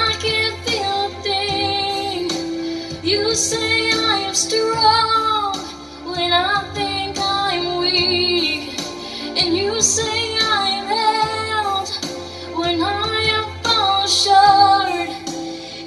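A young woman singing into a microphone over a karaoke backing track, with long held notes that waver in vibrato and a brief dip in level about six seconds in.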